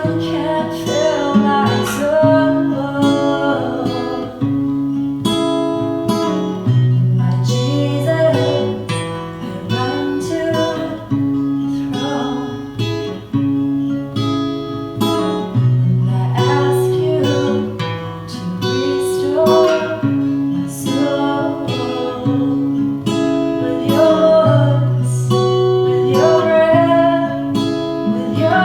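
Acoustic guitar strumming a slow chord progression, with singing in places over it.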